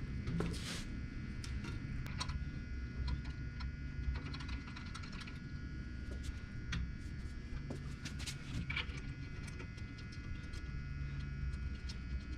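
Scattered light clicks, taps and scrapes of hand work on an opened belt and disc sander as it is cleaned, over a low steady hum.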